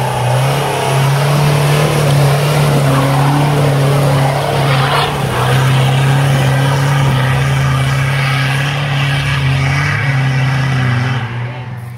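Off-road buggy's engine held at high revs under load as it climbs a muddy slope with its wheels spinning and throwing mud. It runs steadily and loudly, then drops away near the end.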